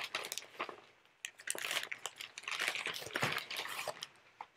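Packaging crinkling and rustling in the hands, a run of irregular crackles with short pauses.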